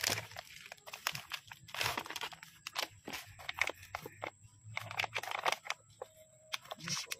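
Crunching, crinkling rustles and clicks in irregular bursts from hands working with potting materials.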